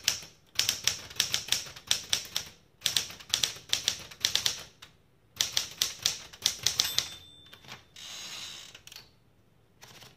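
SCM Smith-Corona Galaxie Deluxe manual typewriter being typed on in three quick runs of key strikes. About seven seconds in the margin bell rings, followed by a second-long sliding noise of the carriage being returned, then a few more clicks.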